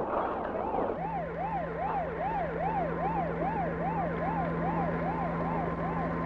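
Emergency vehicle siren in a fast yelp, rising and falling about three times a second, starting about a second in, with a steady low hum under it.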